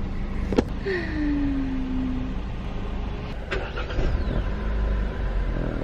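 Car engine idling, heard from inside the cabin as a steady low rumble. A sharp click comes about half a second in, followed by a short falling tone.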